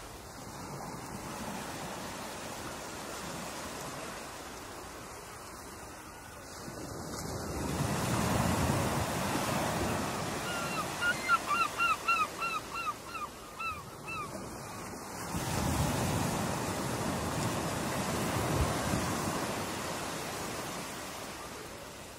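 Ocean surf breaking and washing in, with wind, swelling louder twice as sets come through. About halfway through, a run of about nine short, quickly repeated calls sounds over it.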